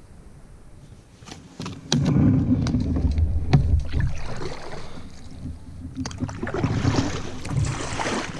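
Kayak paddling: a double-bladed paddle dipping and splashing through the water, with sharp knocks of the paddle against the kayak hull and low bumps that are loudest about two to four seconds in.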